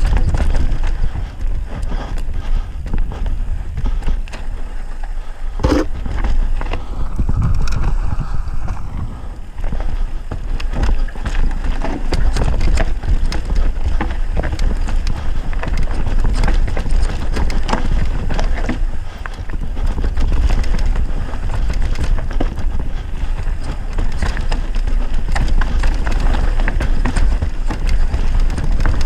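Mountain bike descending a rough dirt forest trail, heard from a camera on the rider: steady wind rumble on the microphone with constant rattling and clattering of the bike over roots and rocks, and a sharp knock about six seconds in.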